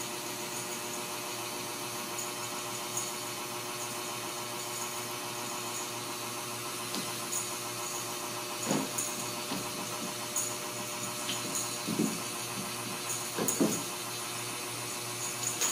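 A steady machine hum, even and unchanging, with a few brief soft sounds about nine, twelve and thirteen seconds in.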